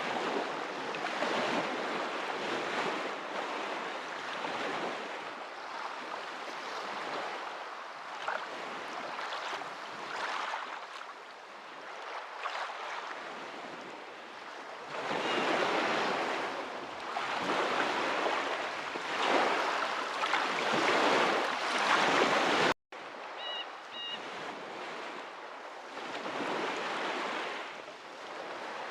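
Water washing in surging swells, like waves breaking on a shore, growing louder for a stretch before an abrupt cut about two-thirds of the way in, after which it carries on more quietly.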